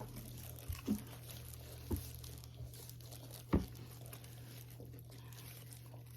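Quiet eating: a few brief mouth sounds, about one, two and three and a half seconds in, over a steady low hum.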